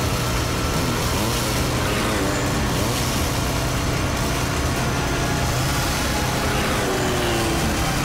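Motorcycle engines revving hard at speed, their pitch rising and falling again and again over a steady low engine drone.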